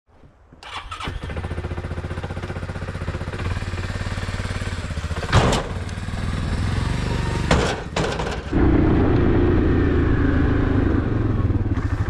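ATV (four-wheeler) engine running, with a few sharp knocks about five and a half, seven and a half and eight seconds in. It then runs louder and steadier from about eight and a half seconds.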